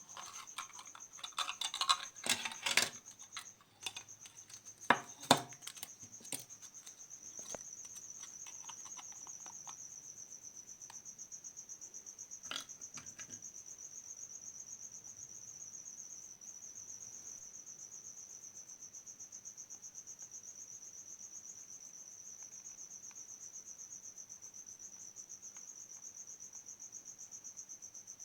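A cricket trilling steadily and high-pitched, with a run of small sharp clicks and taps over the first several seconds, the loudest about two to five seconds in.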